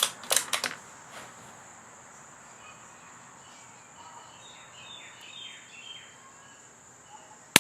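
A steady high insect drone with faint bird chirps, a few clicks about half a second in, and near the end a single shot from a suppressed CZ 455 .22 LR bolt-action rifle, the loudest sound.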